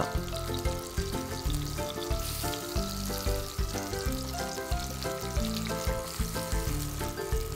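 Small whole fish pan-frying in oil, a steady sizzle that gets brighter about two seconds in. Background music plays underneath.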